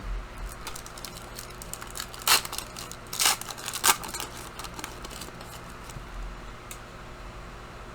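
A trading card pack's wrapper crinkling and tearing as it is ripped open and handled: scattered small crackles, with three louder rips between about two and four seconds in.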